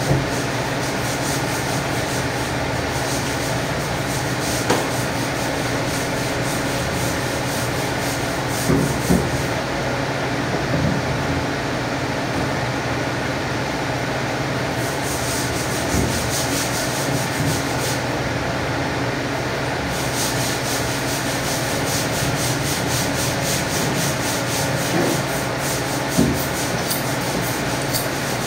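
Steady hum and hiss of machinery in a butcher's cutting room, with a few soft knocks as a butcher knife works through a pork carcass.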